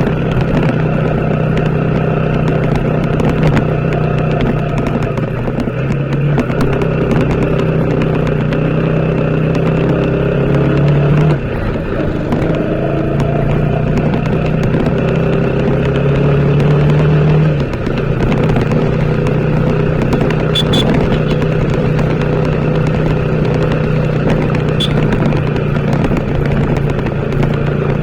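TVS Apache RTR 160 4V's single-cylinder engine running under way, its pitch climbing as the bike accelerates. The note drops briefly twice, about eleven and seventeen seconds in, like gear changes.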